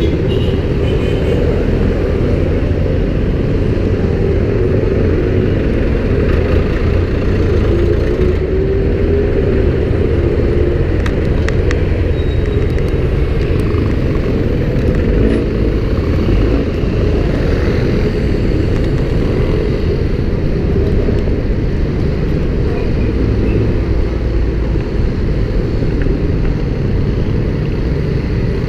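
Street traffic heard from a moving electric scooter: engines of passing cars and motorcycles over a steady low wind rumble on the microphone.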